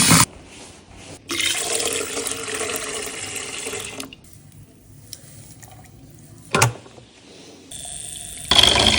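Water running into a container in separate runs: one of about three seconds starting about a second in, a brief splash past the middle, and another run starting near the end.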